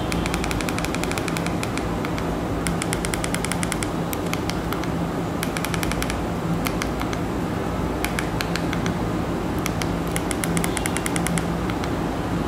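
Several short runs of rapid, evenly spaced clicks, about ten a second, from stepping across an on-screen TV keyboard to type a search. A steady low hum runs underneath.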